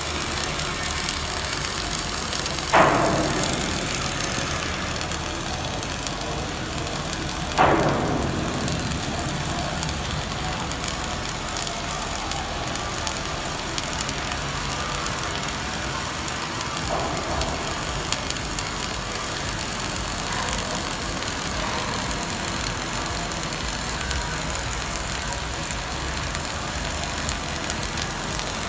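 Flux-cored arc welding arc crackling and hissing steadily while running a flat-position weld. Two sharp metallic knocks, each with a brief ringing tail, come about three and eight seconds in.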